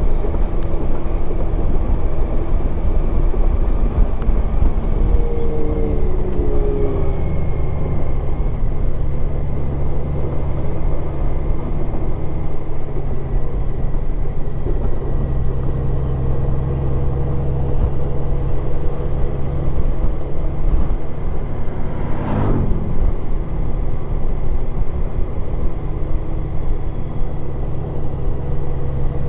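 Motorcycle engine running steadily at road speed, with wind and road noise. About two-thirds of the way in, a brief sound sweeps down in pitch.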